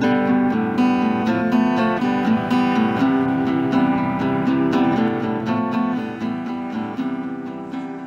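Solo acoustic guitar strummed in an improvised jam, steady chords that begin to fade out over the last two seconds.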